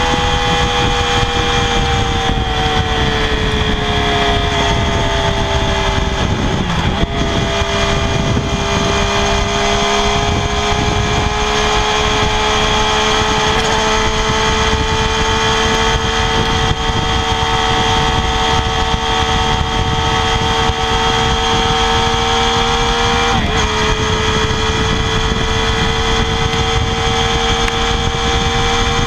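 Triumph Daytona 675R's 675 cc inline three-cylinder engine held at high revs through the stock exhaust, a steady note. The pitch sags slightly over the first six seconds, then creeps back up and holds, with a brief blip about 23 seconds in.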